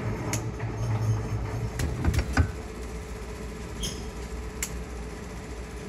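Small metallic clicks and clinks from metal chain-mail rings and a hand tool being worked during mesh repair, several in the first half and the loudest about two and a half seconds in, over a steady low hum.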